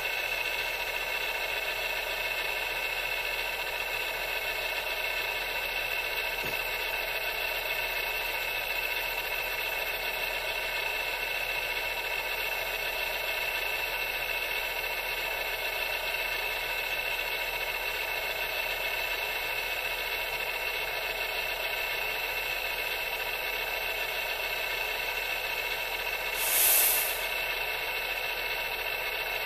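Steady electric whine of a radio-controlled model dump truck's tipper drive as the dump body slowly lifts to tip its load of stone. A short, loud hiss breaks in near the end.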